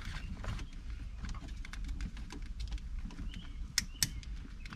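Small plastic clicks and taps from wiring connectors being handled and pushed onto the back of a Porsche Boxster 986 console switch panel, with two sharper clicks a little before the end.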